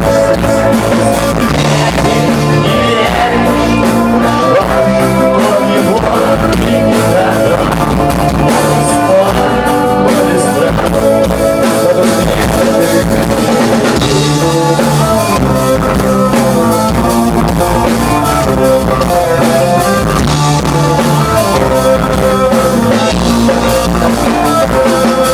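Rock band playing live in concert: electric guitar and drum kit, loud and steady.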